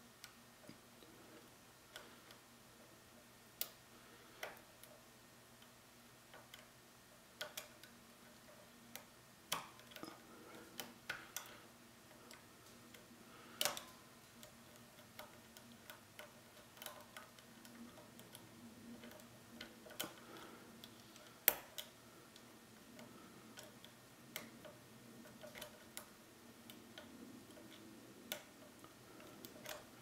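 Lock pick and tension wrench working in the keyway of a Rav Bariach pin-tumbler padlock, a Mul-T-Lock clone: faint metallic clicks and ticks at irregular intervals, some in quick little clusters, as the pins are picked one at a time.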